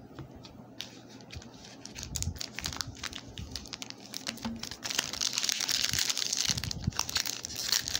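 Foil wrapper of a trading card pack crinkling as it is handled and pulled open, with scattered sharp clicks at first and denser crinkling from about halfway through.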